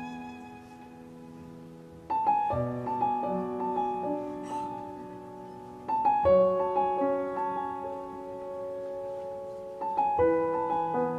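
Background music: slow piano chords, a new chord struck about every four seconds and left to ring out.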